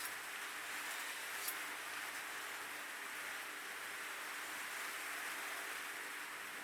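Steady background hiss with one small tick about one and a half seconds in.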